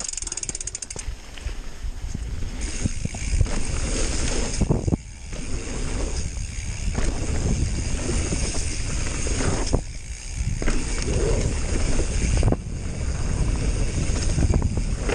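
Mountain bike ridden fast down a dirt jump trail: a continuous rush of tyre roll on packed dirt and wind on the microphone, with the bike rattling over the ground. The noise drops out briefly about five and ten seconds in, where the wheels leave the ground over jumps.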